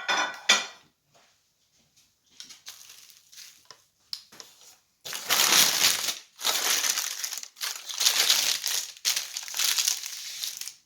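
Wrapping crinkling and crumpling as it is handled and pulled off, in several loud stretches of about a second each from about five seconds in, after softer rustling. A short sharp noise comes right at the start.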